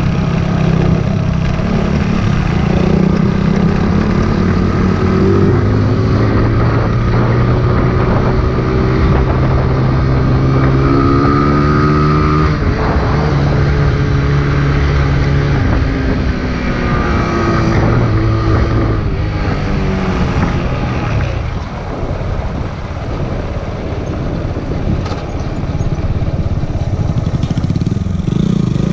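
Kawasaki Z125's small single-cylinder four-stroke engine running under way, its pitch rising and falling several times as the throttle opens and closes.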